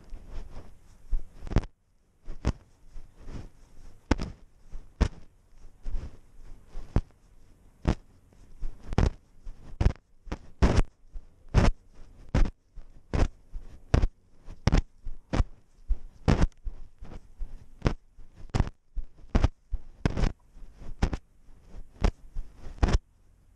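Chest-mounted GoPro knocking and rubbing against the walking cat with each stride: a run of sharp, uneven knocks, about one to two a second, with a short pause about two seconds in.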